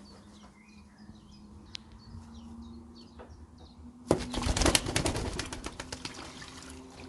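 Young racing pigeons flapping their wings in a water bath: a sudden burst of splashing and wing-beating about four seconds in that lasts a second or two and tapers off. Before it, faint high bird chirps.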